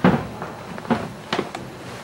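A few light knocks and clicks: one right at the start, then several more spread through the next second and a half.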